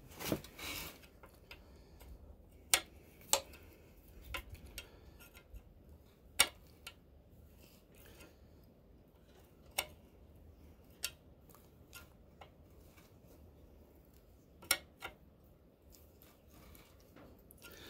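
Open-end wrench clicking and scraping against a tractor engine's oil-line fitting as it is fitted and worked to loosen the nut: sharp metallic clicks at irregular intervals, a second or several apart.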